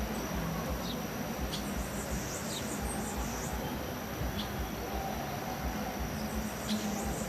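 Birds chirping, a string of short high calls, over a steady background hiss and rumble.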